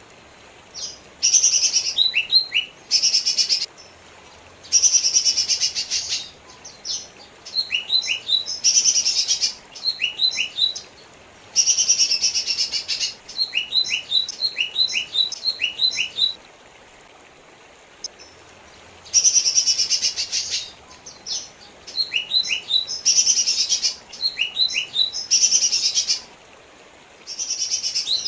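Lesser green leafbird (cucak ijo mini) singing: repeated fast, high trills about a second long, alternating with runs of short, quick falling notes, with a pause of about two seconds just past the middle.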